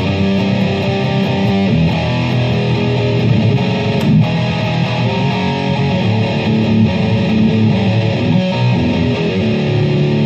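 Electric guitar with an Explorer-style solid body playing a riff of changing notes, ending on a held chord that rings on near the end.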